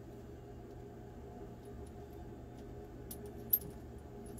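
A few small metallic clicks and rattles as a folding rifle bipod's legs and clamp are handled and fitted to the rifle. The sharpest click comes about three and a half seconds in, over a faint steady hum.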